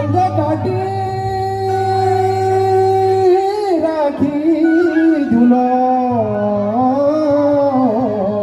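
Singing with musical accompaniment: a singer holds long notes that bend in pitch, over a steady low held tone that drops out about three seconds in and comes back after about five seconds.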